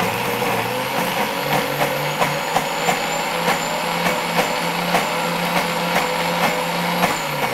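Optimum 9200 high-speed blender running steadily, blending a thick paste of olive oil, nutritional yeast and onion, with regular clicks about three times a second.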